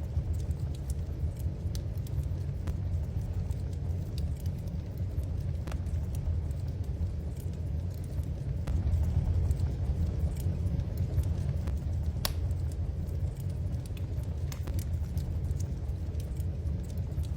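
Wood fire burning in a fireplace: a steady low rumble with scattered crackles and pops, one sharper pop about twelve seconds in.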